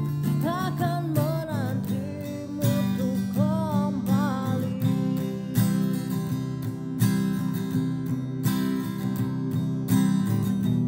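Acoustic guitar strummed in a steady rhythm, with a voice singing over it in the first half, then the guitar alone.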